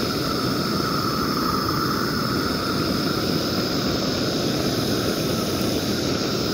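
Long-handled propane torch burning steadily, an even hiss with a faint constant whistle, as its flame melts a rope of tar crack filler into an asphalt crack.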